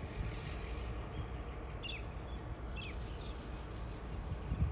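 A bird gives two short descending calls about a second apart, over a steady low rumble.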